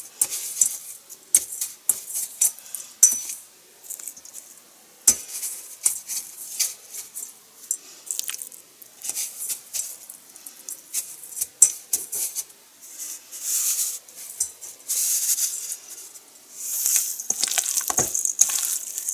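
Panko breadcrumbs rustling and crunching as hands press them onto raw chicken breast pieces in a stainless steel bowl, with irregular sharp clicks and scrapes against the bowl. The rustling grows denser near the end.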